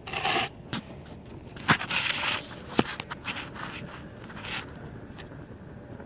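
Handling noise from the recording device being positioned: rustling and scraping with a couple of sharp knocks, the loudest about two and three seconds in. It then settles into a steady faint hiss.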